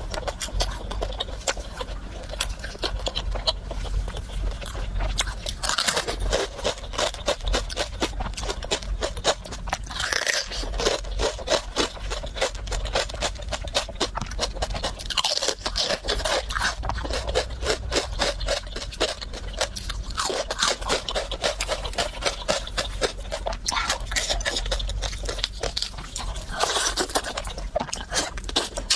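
Close-miked eating: continuous crunching and chewing with rapid clicks, and a few louder, longer mouth sounds every few seconds.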